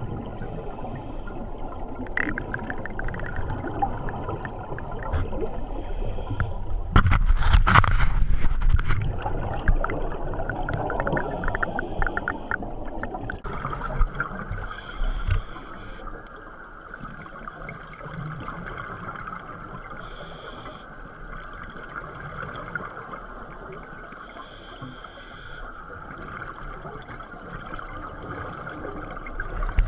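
Underwater scuba breathing: bubbling bursts of air exhaled through a diving regulator, loudest about seven to nine seconds in, then short hisses about every five seconds.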